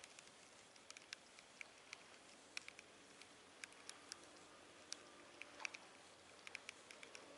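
Near silence with a faint hiss, broken by small, irregular clicks and ticks, roughly one or two a second.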